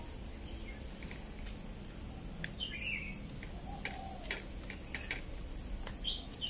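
Steady high-pitched insect drone, with a bird chirping twice, about three seconds in and near the end, and a few faint clicks.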